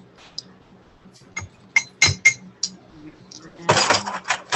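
Metal spoon clinking against a mug several times as a tablespoon of milk is measured into a beaten egg, followed by a short clatter near the end.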